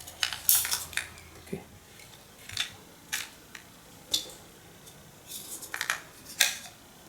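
Scattered light plastic clicks and scrapes of hands working at the battery compartment of a camera shooting grip, trying to get out a coin-cell battery that is hard to remove. The clicks come thicker about two-thirds of the way through.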